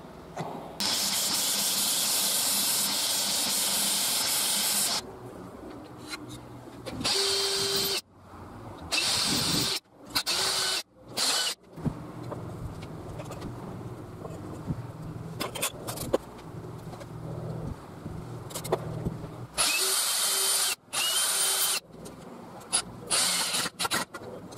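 Power tools in a series of bursts that start and stop abruptly, among them a cordless drill driving into plywood in short spurts. In the middle, a lower-pitched steady run lasts several seconds.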